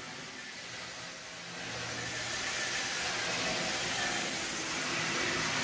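Paint spray gun hissing steadily as it sprays a coat of gray paint, growing louder about two seconds in, with a low hum underneath.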